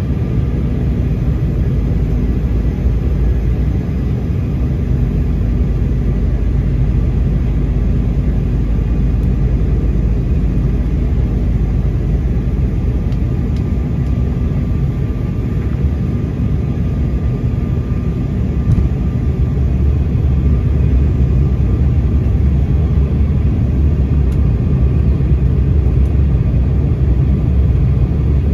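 Cabin noise of an Embraer 195 airliner on approach: a steady low rumble of airflow and its GE CF34-10E turbofan engines, with a faint steady hum above it, growing slightly louder in the second half.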